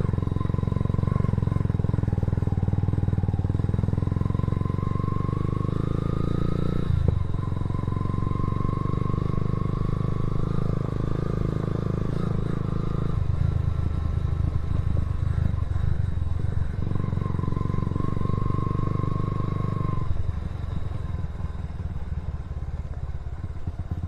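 Motorcycle engine running under way. The engine note drops back briefly about seven seconds in, thins for a few seconds from about thirteen seconds, and falls off again near the end, with a faint whine gliding slightly above it.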